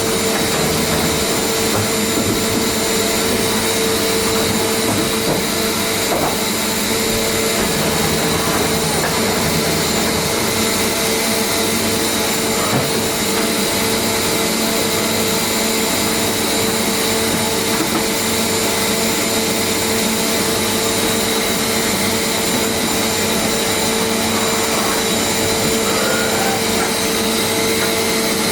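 Mazak FH580-40 horizontal machining centre running: a steady machine hum and hiss with a constant whine held over it.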